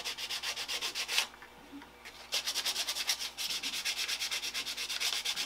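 Sandpaper, 320 grit, rubbed by hand over a black PLA 3D print in rapid back-and-forth strokes. The strokes stop for about a second a little over a second in, then start again.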